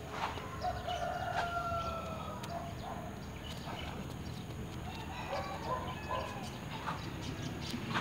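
A rooster crowing, one long call starting about half a second in, with more fowl calls a few seconds later and scattered sharp taps.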